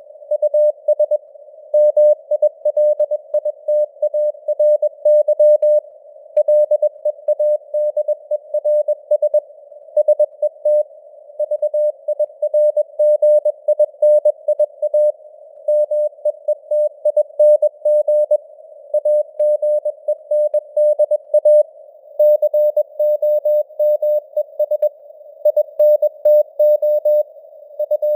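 Morse code (CW) sent at 21 words per minute: a single mid-pitched sine tone keyed rapidly into dots and dashes, with short pauses between words. It sits in a narrow band of simulated radio hiss, and the signal strength fades up and down (QSB).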